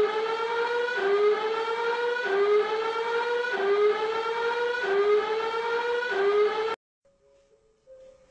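A television's earthquake early-warning alarm sounding after its countdown has reached zero: a loud rising tone, repeated about once a second, which means the earthquake's shaking is arriving. It cuts off suddenly with about a second and a half to go.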